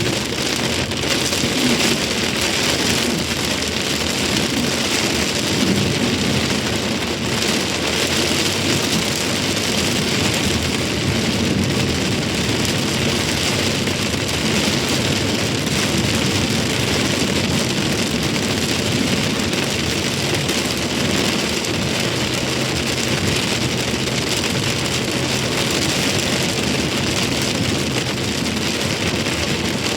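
Steady rain falling, a continuous hiss with a low rumble underneath.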